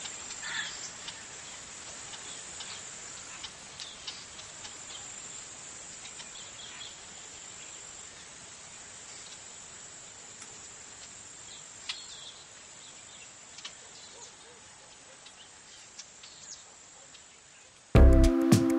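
Jungle-style nature ambience: a steady high insect drone, like crickets, with scattered short chirping calls, slowly fading. Near the end, loud music with a beat cuts in suddenly.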